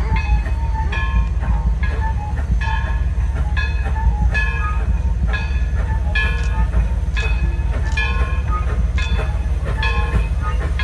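Steam train of East Broad Top 2-8-2 Mikado #16 running, its locomotive bell ringing steadily about every half second over a deep, steady rumble.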